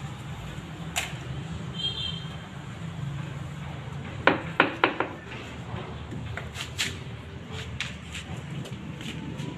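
Ceramic stair tile being set into mortar by hand: scattered clicks and taps of tile handling, with three sharp knocks in quick succession about four seconds in. A steady low hum runs underneath.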